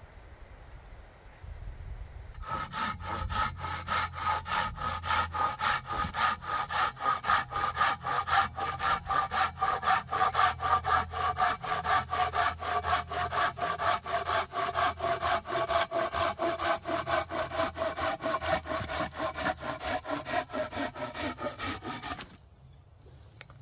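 Small hand saw cutting through a thin pine log in quick, even back-and-forth strokes, about four a second, with a ringing tone that slowly drops in pitch. It starts a couple of seconds in and stops suddenly near the end.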